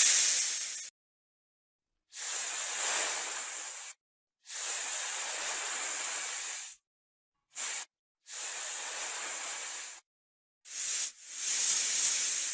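Snake hissing in a series of separate hisses, each lasting about two seconds with short silent gaps between them, plus two brief short puffs. The hiss is a high, airy sound.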